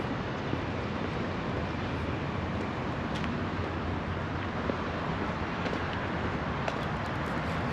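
Steady city street noise with road traffic running continuously.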